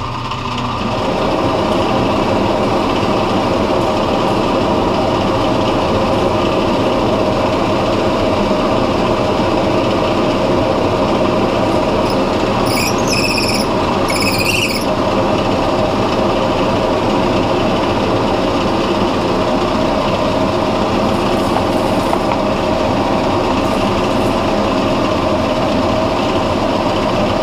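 Drill press motor running steadily with a brad point bit spinning. About halfway through, two short bursts of cutting sound as the bit bores a hole into a wooden block.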